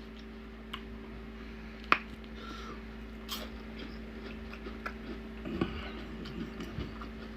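Quiet eating: chewing and mouth sounds with a few light clicks and taps, the sharpest about two seconds in, over a faint steady low hum.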